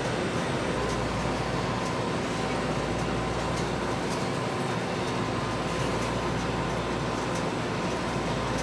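Steady background hum and rumble of machinery, with a few faint light clicks.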